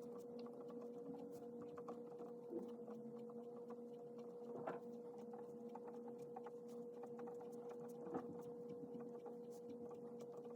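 Pen writing on paper: faint scratching strokes with a few light taps, over a steady electrical hum.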